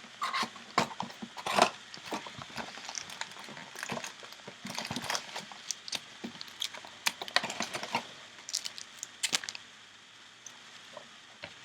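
Cardboard hobby box and sealed card packs being handled and unpacked: irregular taps, clicks and crinkling rustles, quieter near the end.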